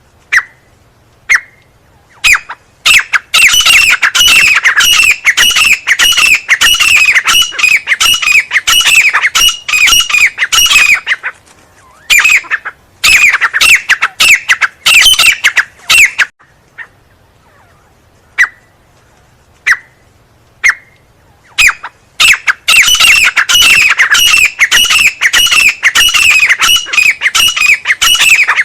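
Grey francolin (teetar) calling: spaced single sharp notes that break into long runs of rapid, repeated harsh calls, in three bouts with short pauses of single notes between them.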